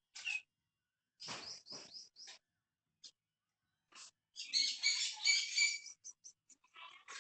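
High-pitched animal chirps and squeaks in short scattered bursts, with a dense run of rapid chirping about four and a half seconds in that lasts over a second.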